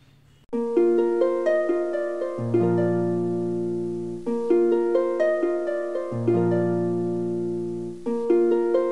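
Background music of repeating plucked-string arpeggios that start about half a second in, with low bass notes joining a couple of seconds later.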